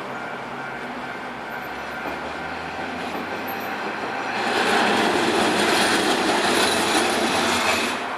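A Hankai Tramway streetcar crossing a level crossing. The rumble of its wheels on the rails rises about four seconds in, stays loud for some three and a half seconds, then drops away just before the end.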